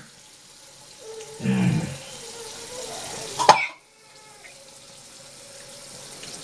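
Tap water running into a sink, with a short cough about a second and a half in. A sharp knock comes about three and a half seconds in, the running water cuts out briefly, then starts again.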